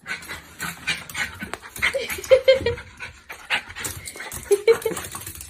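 A dog panting in quick, irregular huffs.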